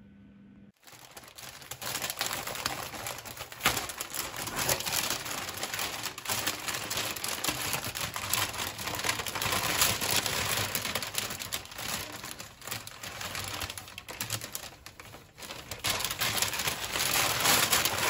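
Brown paper wrapping around a flower bouquet crinkling and rustling as it is unwrapped and handled by hand. The crackle starts suddenly about a second in and keeps up densely, with many small sharp crinkles.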